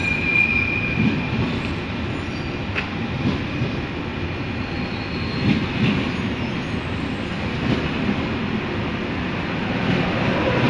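TGV high-speed train rolling past along the platform: a steady rumble of wheels on rail, with irregular knocks as the wheels run over rail joints. A brief high wheel squeal sounds right at the start.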